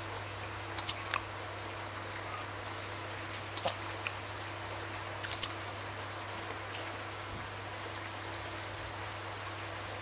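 Close-miked chewing of a sushi piece with the mouth closed: sharp wet mouth clicks in quick pairs, three times, over a steady low hum and hiss.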